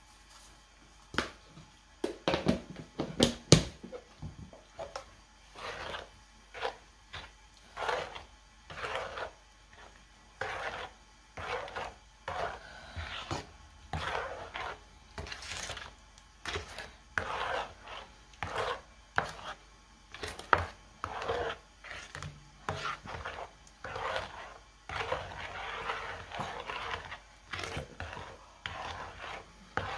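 A spatula stirring thick, wet ube halaya mixture in a nonstick frying pan, scraping through it in repeated strokes about once a second. A few sharp knocks of the utensil against the pan come in the first few seconds.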